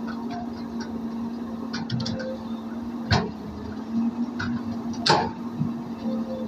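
Caterpillar E200B excavator's diesel engine running with a steady hum, with two sharp knocks about three and five seconds in and lighter clicks in between.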